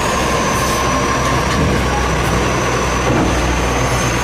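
Automated side-loader garbage truck running with its engine at a steady speed and a steady high whine from the hydraulics as the arm grabs a wheelie bin and lifts it to tip it into the hopper.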